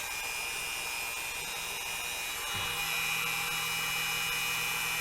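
A steady mechanical whir with a thin high whine, like a small motor or fan running; a lower hum joins about two and a half seconds in.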